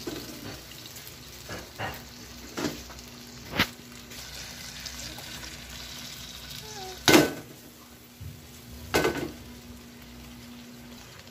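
Whole shrimp frying in oil in a nonstick pan over low heat, a steady gentle sizzle, broken by a few sharp knocks, the loudest about seven seconds in.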